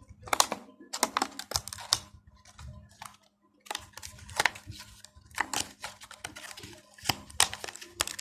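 Hot Wheels blister card being opened by hand: irregular plastic and cardboard crackles, clicks and tearing, with a brief pause about three seconds in.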